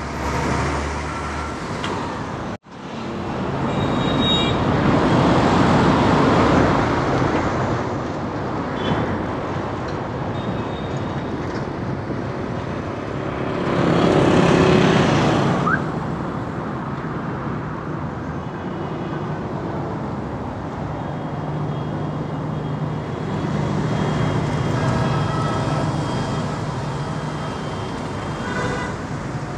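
Busy highway traffic noise: engines and tyres running steadily, swelling louder twice as vehicles pass close. The sound cuts out for an instant about three seconds in.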